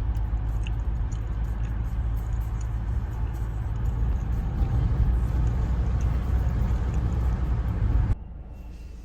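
Steady low rumble of road and engine noise inside a moving car. It cuts off abruptly about eight seconds in.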